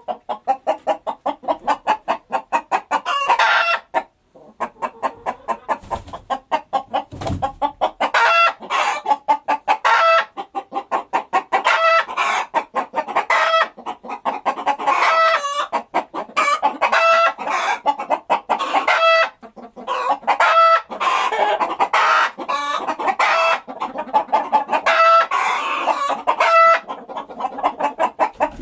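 A flock of chickens clucking in dense, rapid strings, with short higher-pitched calls repeating about every second or so.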